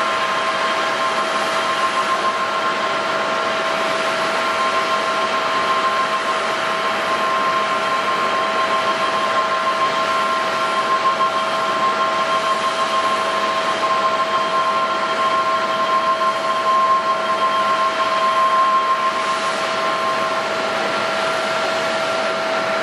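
Jet airliner engines running steadily: a rushing noise with a whine of several steady tones on top. The tone near 1 kHz drops out about twenty seconds in.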